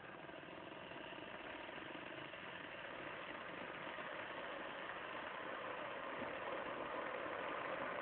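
Smile WK-1610 electric kettle heating water, with the water starting to bubble: a steady seething noise that grows gradually louder as it nears the boil.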